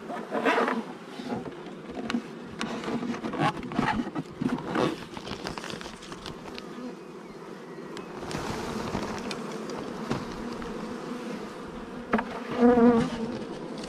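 Honey bees buzzing around an open hive, with one louder buzz passing close near the end. Light knocks and rustles come from hive parts being handled.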